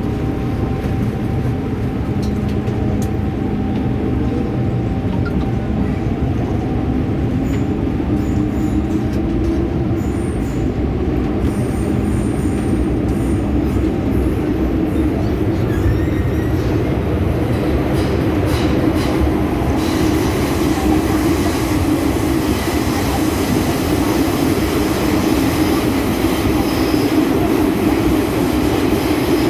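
MTR M-Train electric multiple unit heard from inside the car, pulling away from the station and accelerating into the tunnel. The traction motor whine rises in pitch over the steady rumble of wheels on rail.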